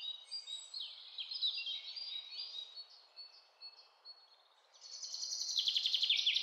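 Faint bird-like chirping: short falling chirps over a soft hiss, then, from about five seconds in, a fast, rapid trill that grows louder.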